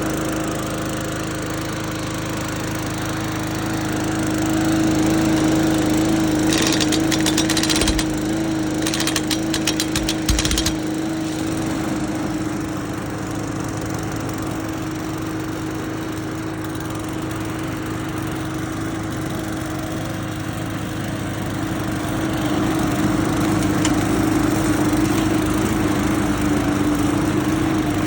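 Push-mower engine running at a steady speed. Twice, between about 6 and 11 seconds in, a short burst of rapid mechanical rattling sounds over it.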